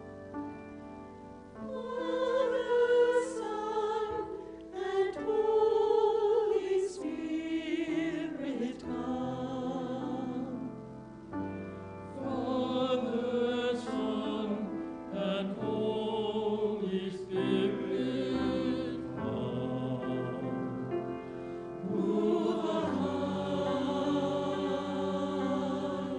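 Mixed church choir of men's and women's voices singing a slow anthem in several parts. It starts soft and swells about two seconds in, with short breaths between phrases near the middle and again before a final louder phrase.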